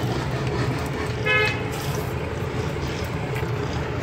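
A vehicle horn gives one short toot about a second in, over a steady low hum of street traffic.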